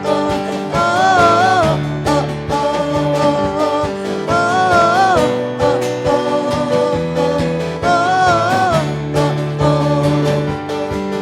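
Worship band music playing an instrumental passage: guitar and sustained band chords under a wavering melody line that swells three times, about four seconds apart.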